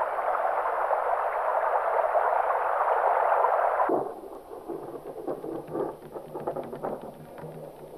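Sound effect of rushing underground water as the roots strike a water vein: a loud, even rush that cuts off suddenly about halfway through. A quieter low rumble with scattered crackles follows.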